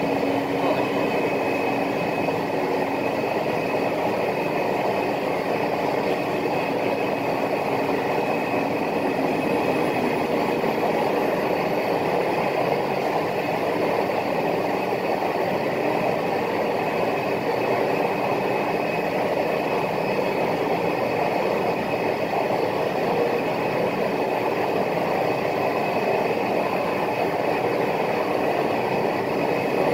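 CNC router running steadily: a high, steady spindle whine over dense mechanical noise, with a lower hum that fades out within the first ten seconds.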